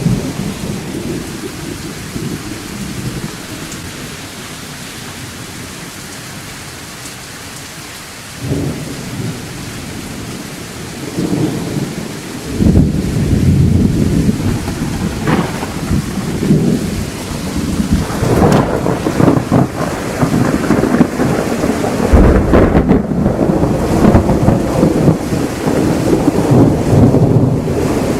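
Thunderstorm: steady rain with rolling thunder. It is quieter at first, then heavy rumbles set in about halfway through and keep swelling, with another deep clap near the last quarter.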